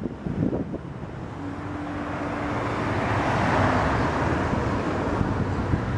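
A motor vehicle passing on the road, its noise building to a peak a little past halfway and easing off, over a steady low traffic hum.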